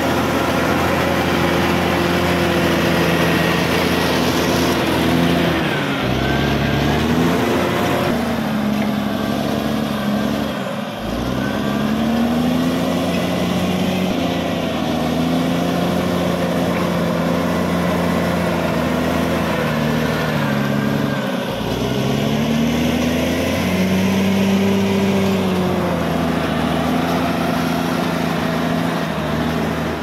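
Caterpillar D6R XL bulldozer's diesel engine running under load as the blade pushes soil. The engine speed dips and picks back up about four times.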